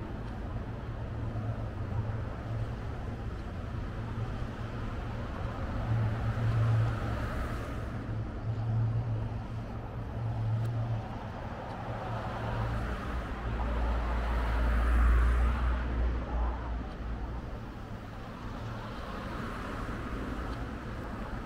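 City street traffic: road vehicles running and passing, with a low rumble that swells several times and is loudest a little past halfway.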